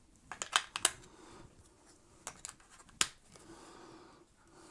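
Sharp plastic clicks and snaps of a small remote control being handled as AAA batteries are pressed in and the battery cover is snapped shut: a quick cluster of clicks in the first second, then a few more, the loudest about three seconds in.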